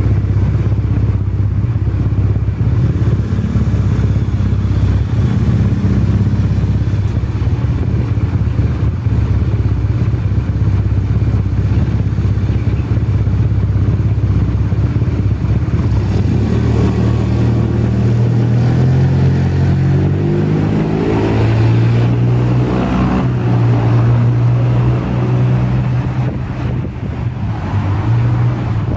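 An engine running steadily, its pitch sliding up and down for several seconds in the second half.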